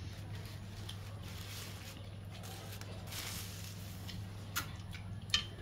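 Eating rice and curry by hand from a metal plate: soft squishing of the food being scooped and wet chewing, over a steady low hum, with a couple of sharp clicks or lip smacks near the end.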